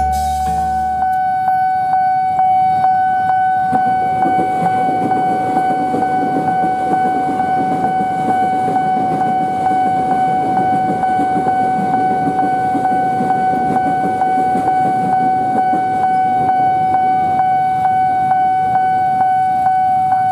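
Railway level-crossing warning alarm sounding one steady, unbroken high tone with faint regular ticks, over a low rumble.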